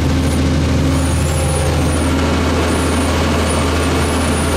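Wheel loader's diesel engine running steadily, heard from inside the cab, with a faint high whine coming and going.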